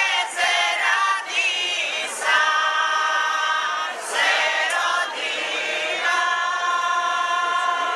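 A mixed group of women and men singing a folk song a cappella, holding long sustained notes.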